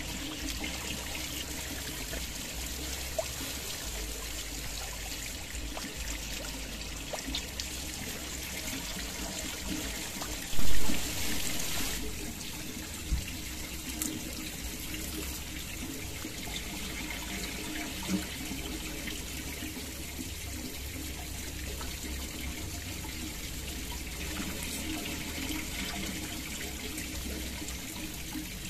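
Water trickling steadily over rocks, with one brief loud bump about ten seconds in and a few faint clicks later on.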